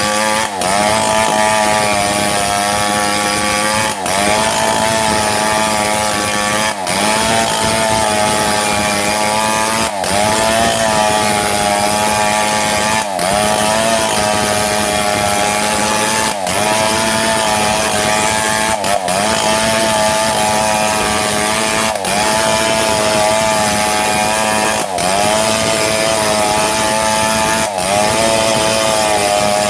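Two-stroke chainsaw running at high revs while cutting through mahogany lengthwise. The engine note dips briefly and climbs back about every three seconds.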